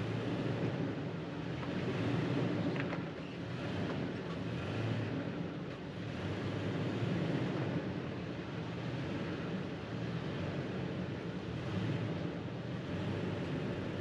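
Toyota Tacoma pickup driving slowly on a rough off-road trail: a steady low rumble of engine and tyres that swells and eases every couple of seconds.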